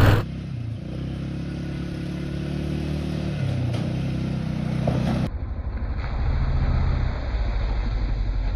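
500cc Polaris quad bike engine running at low, fairly steady speed, the sound changing abruptly about five seconds in.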